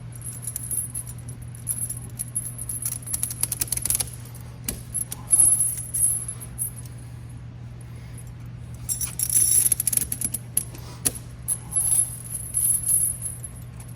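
Steel tire chain links clinking and rattling as the chain is handled and pulled tight on the dual wheels, in irregular clusters with quieter gaps. A steady low hum runs underneath.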